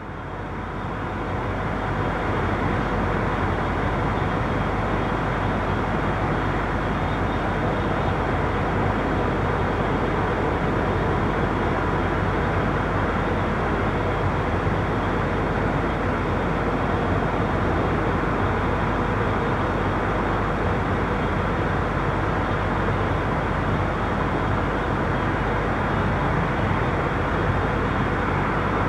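Steady wash of street traffic noise, a continuous blend of tyres and engines with no single vehicle standing out. It fades in over the first couple of seconds, then holds level.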